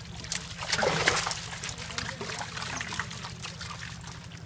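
Water splashing and trickling as hands pick through a cast net full of small live fish, with fish flapping in the shallow water and many small splashes; the loudest splash comes about a second in.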